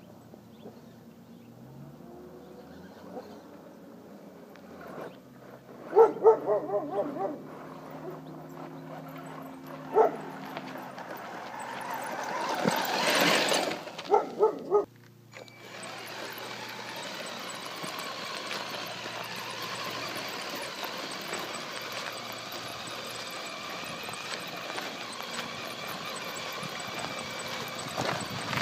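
A dog barking in quick runs of several barks, with a rising rush of noise between the runs. Then a steady whir from the small electric motor and gearbox of a Tamiya CC-01 Unimog RC truck driving nearby.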